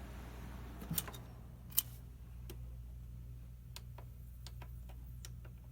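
Light, sharp button clicks: two louder clicks about a second in, then a run of small clicks at uneven spacing, a few a second, over a steady low electrical hum.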